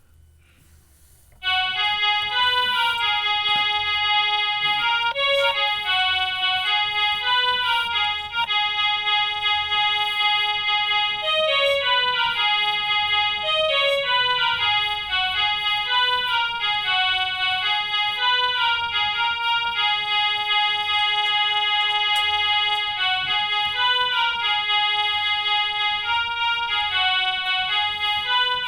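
Big Fun toy electronic keyboard playing a tune through its small built-in speaker, a stepping melody of held notes. It starts about a second and a half in, after a short quiet.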